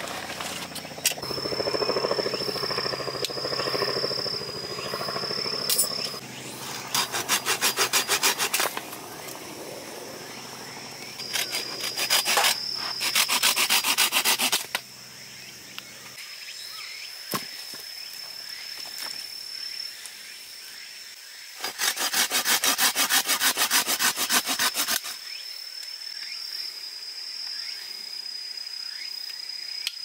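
Hand saw cutting through dry branches for firewood, in three bursts of quick back-and-forth strokes with pauses between. Before the first cut, a few seconds of rustling and handling as the saw comes out of a fabric backpack.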